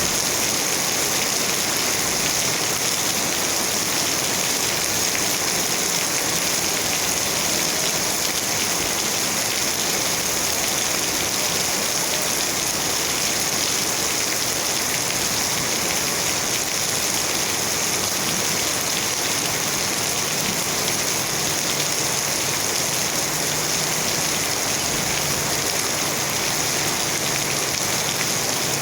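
Steady rain falling, an even hiss of many drops on surfaces.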